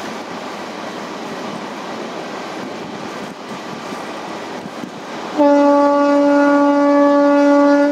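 Steady running noise of a passenger train at speed. About five and a half seconds in, a train horn sounds one long, steady blast of about two and a half seconds, much louder than the running noise.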